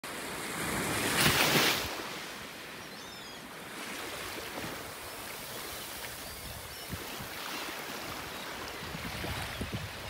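Small waves lapping and washing on the Gulf shore with wind on the microphone, and a louder rush about a second in. Faint seabird calls come through a few times, and short soft thumps near the end fit pelicans splashing and flapping as they take off and dive.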